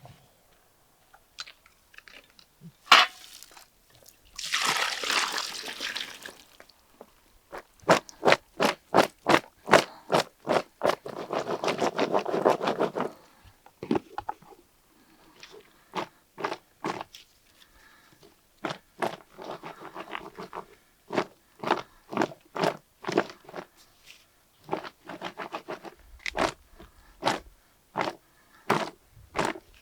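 Kitchen food-preparation sounds: a long series of sharp knocks and crunches, at times about three a second, with a short hissing rustle about four seconds in and a fuller rushing noise about eleven seconds in.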